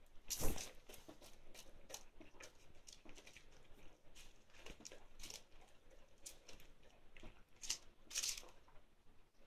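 A dog eating raw minced meat from a paper plate: a run of short, irregular wet smacks and chewing clicks, louder about half a second in and twice more near the end.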